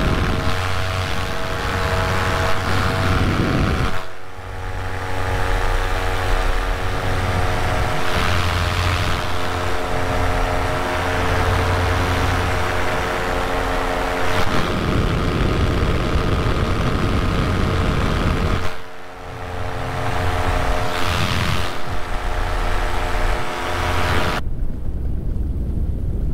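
Vittorazi Moster 185 single-cylinder two-stroke paramotor engine and propeller running smoothly in flight: a steady drone with several even tones, over wind rushing on the microphone. The sound dips briefly about four seconds in and again a little before twenty seconds.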